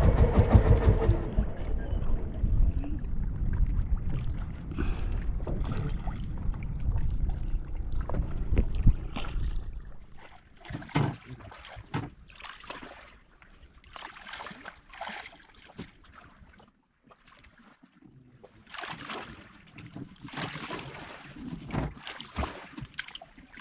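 An engine's low rumble dies away over about the first ten seconds. Then come scattered short knocks and rustles.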